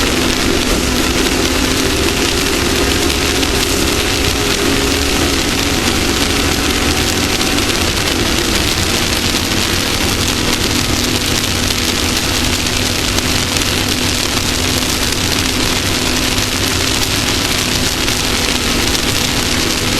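Off-road race vehicle's engine running steadily under load at speed, with a dense hiss of wind and terrain noise over it.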